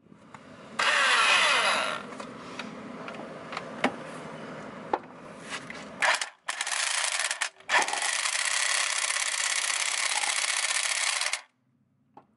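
Great Neck 1/2-inch impact wrench hammering on the crankshaft pulley bolt of a Honda B18C engine in several bursts, the last and longest one running about four seconds before cutting off suddenly. The bolt does not break loose.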